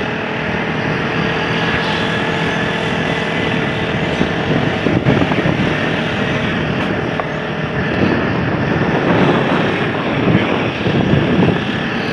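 Motorcycle engine running steadily while being ridden, with wind noise over the helmet-mounted microphone.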